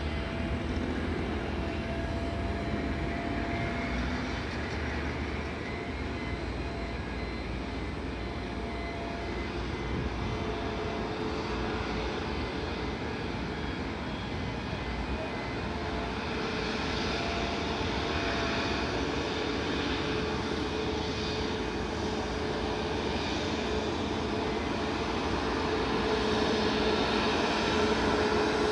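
Boeing 737 MAX 8's CFM LEAP-1B turbofans at taxi power: a steady jet rush with a whining tone, growing louder near the end as the airliner taxis closer.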